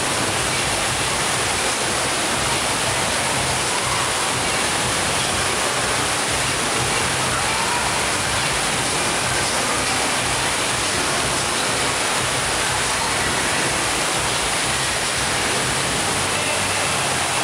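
Rushing water in an indoor waterpark pool: a steady, even roar of churning water.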